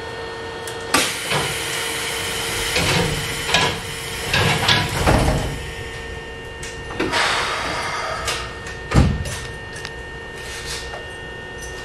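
Sliding passenger doors of a Keikyu 800 series train closing, shutting with a heavy thud about five seconds in, with another sharp clunk about nine seconds in, over a steady hum.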